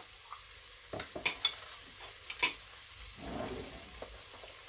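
Minced meat sautéing faintly in a pot with onion and garlic, with a few sharp clicks and scrapes about a second in and again near two and a half seconds.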